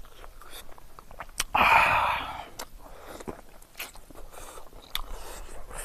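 Close-up mouth sounds of a person eating by hand: biting and chewing with small wet clicks and lip smacks. About a second and a half in comes a louder breathy rush lasting most of a second.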